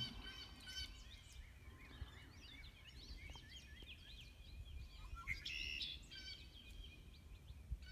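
Small birds chirping and twittering, many short calls scattered throughout, with a louder cluster of calls about five and a half seconds in, over a faint low rumble.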